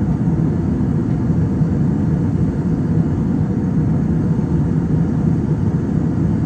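Steady, low cabin noise of a jet airliner in flight: engine and rushing-air noise heard from inside the passenger cabin.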